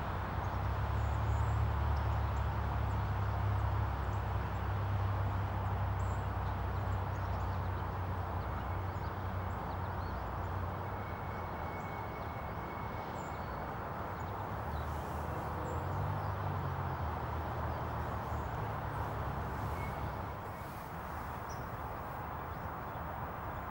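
Outdoor ambience: a steady low rumble, with a few faint, high bird chirps and a thin whistled note now and then.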